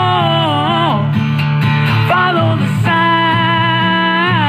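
A man singing long, sliding notes live over a strummed Martin 00-size acoustic guitar.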